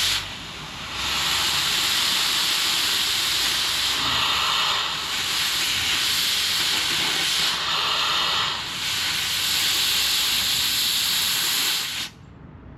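Pressurized gas blown through an air-conditioning refrigerant line set, rushing out the open end with a loud steady hiss that dips briefly about half a second in and cuts off suddenly near the end. The line is being purged, blowing line-set flush solvent out of the old tubing.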